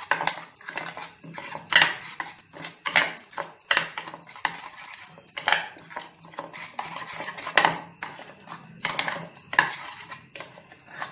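A spoon stirring a thick paste in a ceramic bowl, scraping and clinking against the bowl's sides and bottom in irregular strokes.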